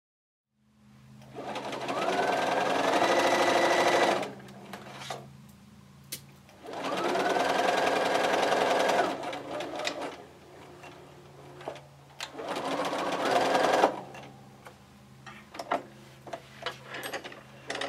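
Bernina sewing machine stitching a seam in three runs of a few seconds each, stopping in between. Each run opens with a rising whine as the motor speeds up, then holds steady. A few light clicks follow near the end.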